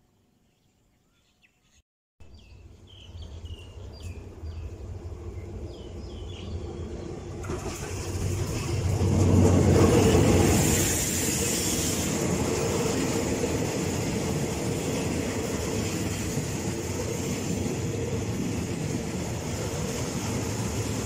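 Diesel locomotive hauling a passenger train into the station along the platform: a low rumble that comes in about two seconds in with a few bird chirps over it, grows loudest as the locomotive passes about ten seconds in, with a brief high hiss, then settles into the steady rumble of the carriages' wheels rolling by.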